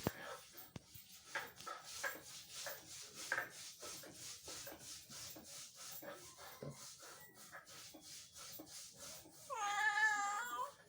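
A cat eating, with quick small clicks and smacks of chewing, then one drawn-out, wavering meow near the end.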